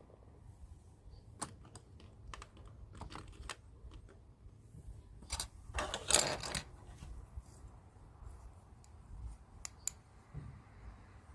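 Small plastic toy pieces from a Hello Kitty hair dryer play set being handled, giving scattered light clicks and taps, with a short scratchy burst about six seconds in.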